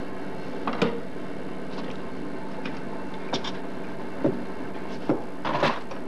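A few light clicks and knocks of tweezers and fingers handling the paper holder as a newly hatched robin chick is fed on the incubator's wire rack, the sharpest about a second in and a quick cluster near the end, over a steady background hum.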